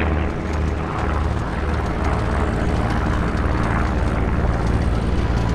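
Two single-engine propeller aircraft flying overhead in formation, their piston engines and propellers making a steady drone.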